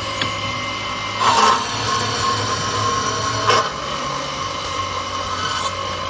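Automatic CNC circular metal-sawing machine running with a steady whine over a low hum, with two short, louder bursts of noise, one about a second in and one about three and a half seconds in.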